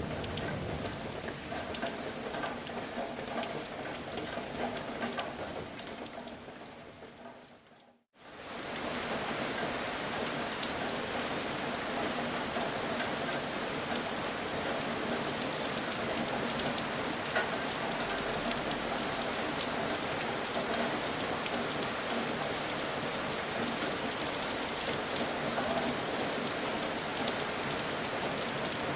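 Rain falling steadily as a pattering hiss. About eight seconds in it fades out to a moment of silence, then comes back as a smoother, brighter rain hiss.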